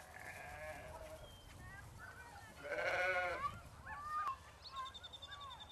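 Sheep bleating: one loud, wavering bleat about three seconds in and a fainter one at the start, with short high chirps in the background.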